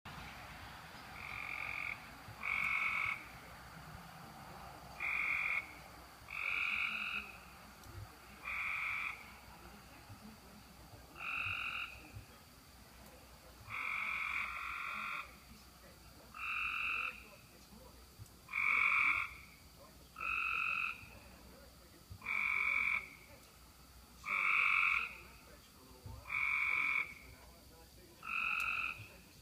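Frogs calling after heavy rain: about seventeen separate calls, each lasting roughly half a second to a second, one every one to two seconds, some following close on one another.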